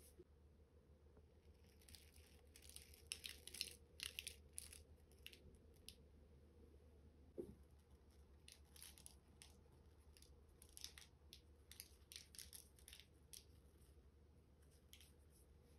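Faint crackling tearing sounds in short runs, with a soft knock about seven and a half seconds in, over a low steady hum.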